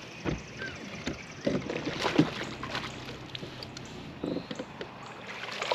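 Irregular light knocks and clicks of tackle and handling on a bass boat while a small fish is reeled in, with a low thump about a third of a second in.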